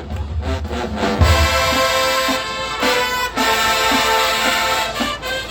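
High school marching band playing: heavy low drum beats open, then about a second in the brass section comes in with loud sustained chords.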